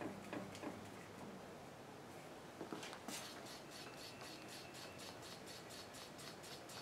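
Faint metal clicks of an Acme tap and tap wrench being handled and set on a drill-press table. From about three seconds in comes a rapid, even ticking, about five ticks a second.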